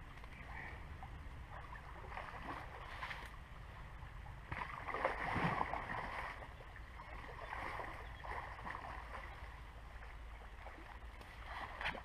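Water swirling and splashing at the surface as a hooked wels catfish fights on the line, louder for about two seconds around five seconds in.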